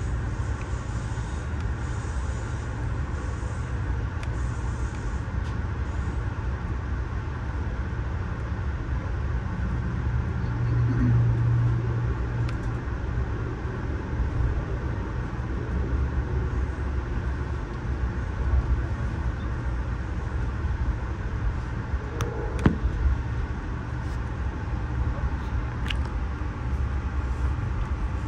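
Ride noise inside a Budd Amfleet passenger coach rolling along the track: a steady low rumble, with a low hum swelling briefly about a third of the way in. A few sharp clicks or knocks come through, the loudest about two-thirds of the way through.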